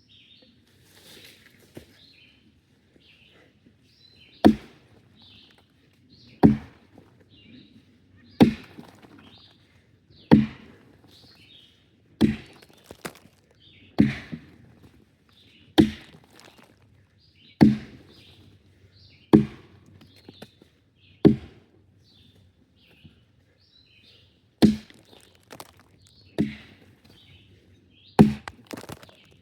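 Wood being chopped with an axe: a steady series of hard chopping blows, roughly one every two seconds, starting a few seconds in with one brief pause. Birds chirp faintly between the strokes.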